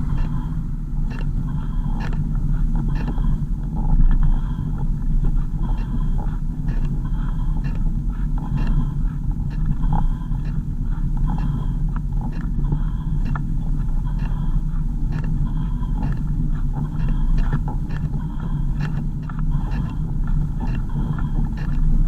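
Car on the move, heard as a steady low rumble of engine and road noise, with frequent small rattles and knocks.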